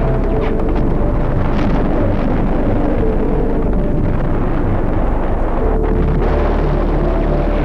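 War-film battle soundtrack: a steady, loud, deep rumble of artillery shellfire, with a few sharp blasts scattered through it.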